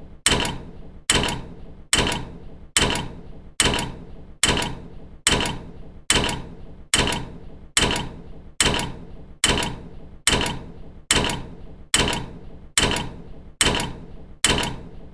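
Metal door slamming shut again and again, about once every 0.8 seconds, the same slam repeated: each a sharp metallic clang that rings on and dies away before the next.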